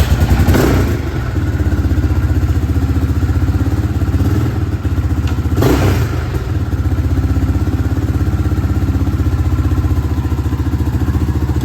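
Yamaha Raptor 660 quad's single-cylinder four-stroke engine running at a fairly steady pitch under way, with a louder surge of noise near the start and again about six seconds in.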